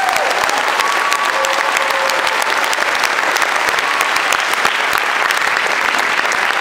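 Audience applauding: dense, steady clapping that started just before and holds evenly throughout.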